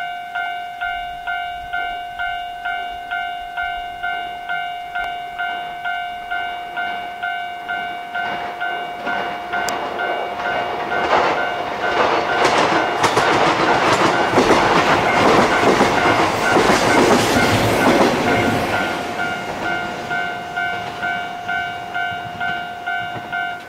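Level-crossing warning bell ringing steadily in even, repeated dings while a red electric train passes, its wheels clattering loudest about halfway through. The bell stops near the end.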